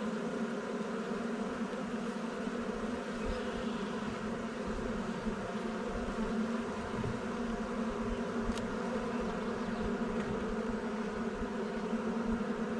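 Steady hum of a dense cloud of honey bees buzzing around an open hive, with one faint click a little past the middle.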